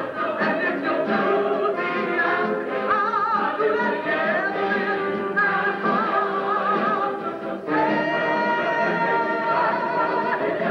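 A Broadway show tune sung by the lead and the company over the theatre orchestra, the lead voice with a wide vibrato. Just before the last few seconds the sound dips briefly, then returns on a held chord.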